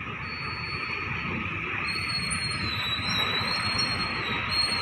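Motor scooter engines running as riders roll onto a vehicle ferry, growing gradually louder, with a steady thin high-pitched whine over the engine noise.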